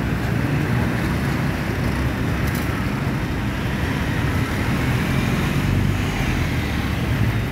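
Steady road traffic: the continuous rumble of cars, vans and three-wheelers driving past on a busy street.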